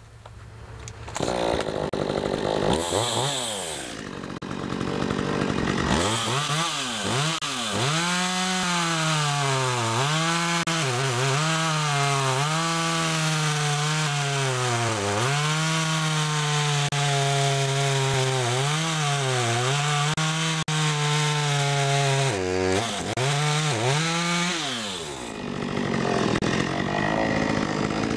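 Stihl MS 192T two-stroke top-handle chainsaw started and briefly revved, then run at full throttle cutting through oak. The engine pitch sags again and again as the new chain bites into the log under load and recovers between cuts.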